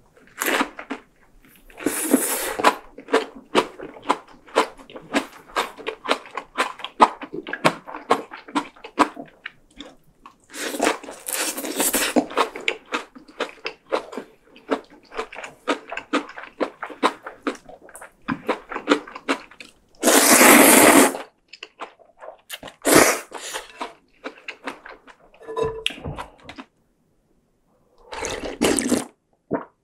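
Close-miked eating: Vietnamese spring roll and spicy rice noodles chewed wetly with many small mouth clicks, broken by several loud slurps, the loudest about two-thirds of the way through. Near the end, broth is slurped straight from the bowl.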